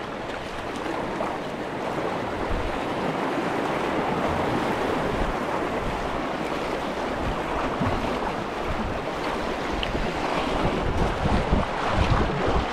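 Rushing white water of a river rapid splashing around an inflatable kayak as it runs through, swelling in the middle. Wind buffets the microphone in uneven low gusts near the end.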